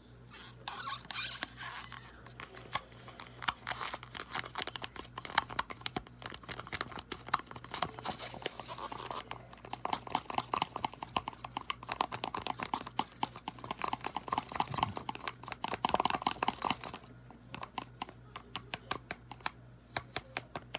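Wooden craft stick scraping and clicking around the inside of a thin plastic cup, stirring thick acrylic paint thinned with Windex. A rapid, scratchy run of clicks that thins out in the last few seconds.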